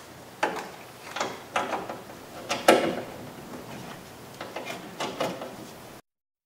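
Irregular metallic clicks and clunks of mounting bolts being put in and worked with hand tools against the sheet-metal door shell of a car door, fixing a power window regulator in place. The sound cuts off abruptly about six seconds in.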